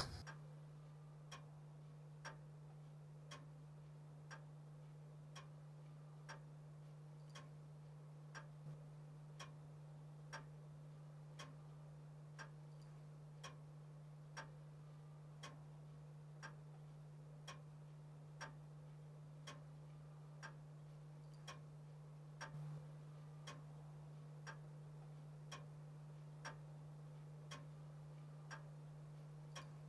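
A clock ticking faintly, about once a second, over a steady low hum.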